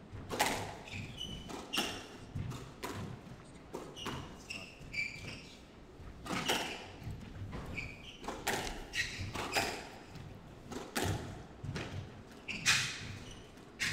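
A squash rally: the ball cracks off rackets and the court walls at irregular intervals, with rubber shoes squeaking on the wooden court floor as the players move.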